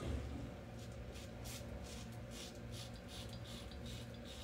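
Open-comb double-edge safety razor on a blue titanium handle scraping through shaving lather and stubble in a quick series of short, faint rasping strokes, over a low steady hum.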